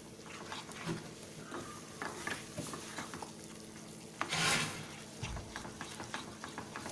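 A spatula stirring and scraping thick masala paste as it fries and sizzles in oil in a non-stick kadhai, with many short strokes and one louder scrape about four and a half seconds in. The masala is being fried until the oil separates.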